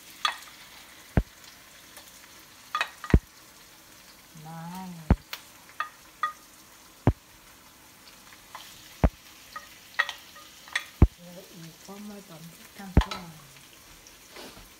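Shrimp, onion and garlic sizzling in a nonstick wok. Sharp clicks and knocks come every second or so as a utensil and a glass dish strike the pan while the shrimp are scraped in and stirred.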